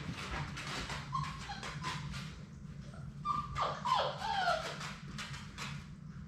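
Labrador retriever puppies whimpering, with a short high squeal about a second in and a burst of falling squeals around the middle, over a quick patter of small paws tapping on the floor.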